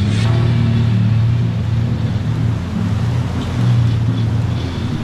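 Engine of a snorkel-equipped 4x4 SUV running steadily under load as it wades through deep water, with the sloshing and splashing of its bow wave.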